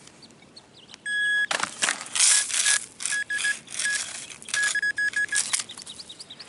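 Metal detector beeping over a buried coin target: one steady tone about a second in, then a run of short beeps, while soil is dug and scraped out in several noisy bursts. Faint bird chirps.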